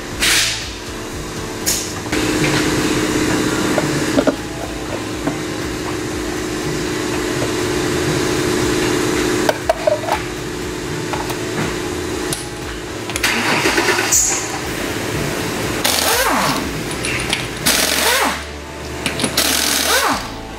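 A steady mechanical hum for about ten seconds, then short, loud rattling bursts of a pneumatic impact wrench in the second half.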